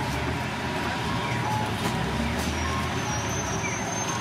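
Steady street background noise with a low rumble of traffic.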